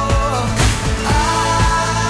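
Pop song playing as background music, with a steady drum beat about twice a second under held notes.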